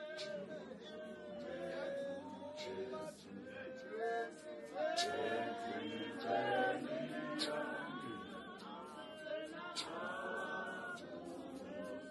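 A church congregation singing a hymn together without instruments, men's and women's voices in harmony.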